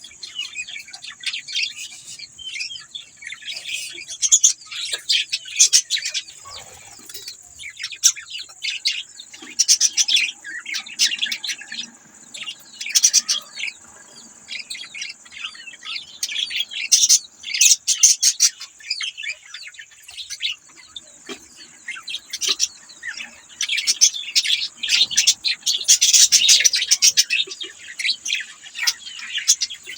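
A flock of budgerigars chirping and chattering continuously, with rapid high chirps and warbles that swell into busier bursts every few seconds.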